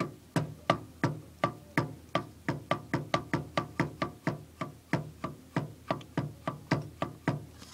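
Fan motor shaft of a Magic Chef dehumidifier being pushed back and forth by hand, clacking in a quick, even series of short knocks, about three to four a second, each with a brief hollow ring. The shaft moves too easily, which the owner suspects is a sign of something gone bad in the motor, behind its overheating and slowing down.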